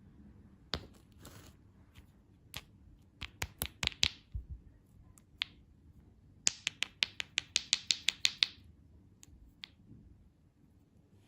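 A series of sharp clicks and taps from hard objects being handled: scattered single clicks, then a quick run of about fourteen clicks, roughly seven a second, starting about six and a half seconds in.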